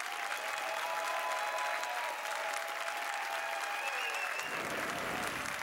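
Studio audience applauding, with a few held tones over the clapping and a low rumble about four and a half seconds in.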